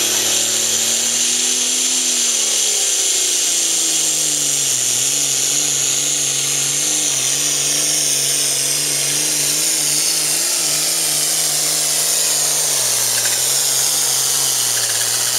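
Super Farm class pulling tractor's diesel engine running flat out under load as it drags the weight-transfer sled down the track. It is loud and steady, with a high whistle over the engine note. The engine pitch sags about two seconds in, wavers as the tractor bogs and hooks, and steps down again near the end.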